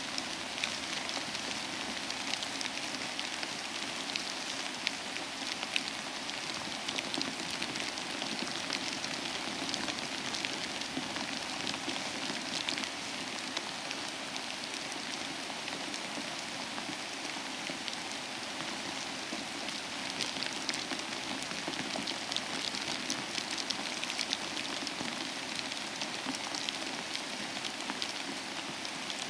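Icy rain and sleet falling, a steady hiss dense with fine ticks of pellets striking a surface.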